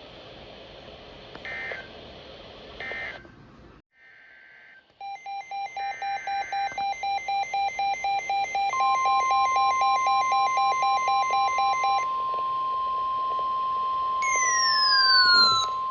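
Emergency alert tones: three short warbling digital data bursts, then rapid electronic beeping that gets louder, then the steady 1050 Hz warning alarm tone that announces a new weather warning. A falling electronic sweep sounds over the steady tone near the end.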